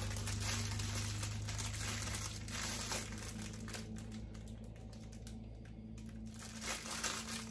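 Plastic packaging crinkling as it is handled and opened, quieter for a couple of seconds past the middle, over a steady low hum.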